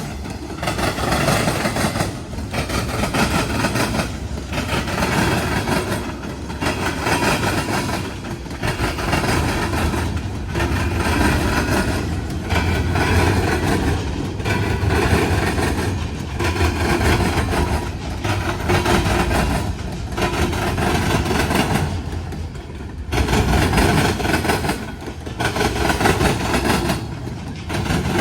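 Freight train rolling across a railroad diamond crossing, its car wheels clattering over the crossing. The noise swells and dips about every two seconds as car after car passes.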